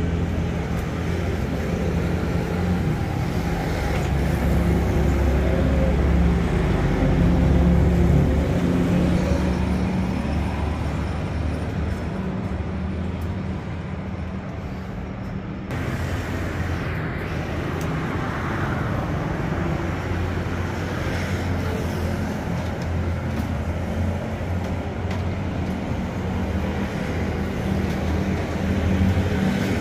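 Road traffic: a steady low engine rumble with a constant hum.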